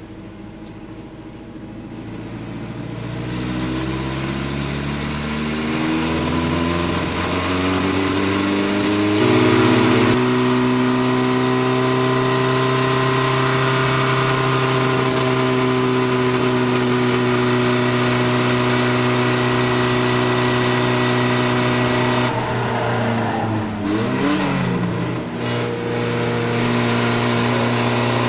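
Chevy LUV race truck's engine heard from inside the stripped cabin, climbing steadily in pitch as it accelerates over the first ten seconds, then holding high revs down a straight. About three quarters of the way through the revs dip and waver for a couple of seconds, as when lifting off for a corner, before steadying again, with road and wind noise underneath.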